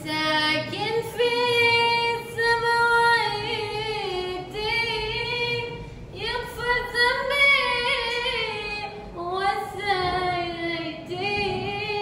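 A woman singing a slow, unaccompanied mourning lament into a handheld microphone, amplified over a loudspeaker, in long held notes that waver and bend in pitch, with short breaks for breath.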